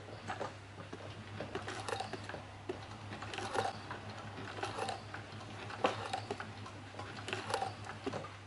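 Heavy-duty cylinder-arm sewing machine stitching leather slowly, with a light click at each stitch, roughly one a second and unevenly spaced, over a steady low hum.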